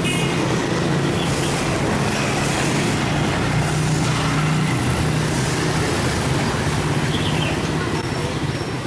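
Street traffic dominated by motorbikes: a continuous wash of small engines running and passing, with a steady low engine drone underneath.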